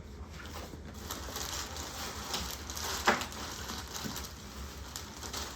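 Rustling and handling of parts and packaging, with one sharp knock about three seconds in, over a steady low hum.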